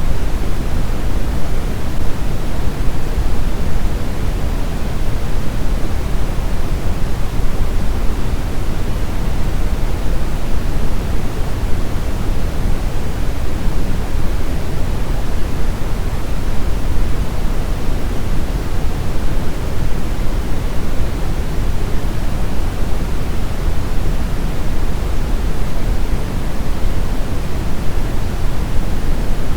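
Brown noise: a steady, even rushing hiss, deepest in the low end and falling away toward the treble, with no changes or events.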